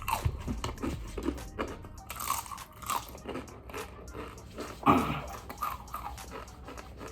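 Crunching as a spicy tortilla chip is bitten and chewed, many short crackles. A brief louder sound with a pitch about five seconds in.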